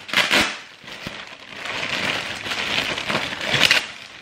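Clear plastic packaging bag crinkling and rustling as it is pulled open around a folded horse rain rug, in uneven bursts, the loudest near the end.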